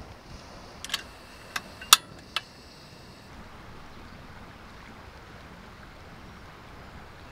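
Four sharp metallic clicks with a short ring, the loudest about two seconds in, from handling a metal mess tin on a portable gas stove. After them comes a steady, faint outdoor hiss of wind and river water.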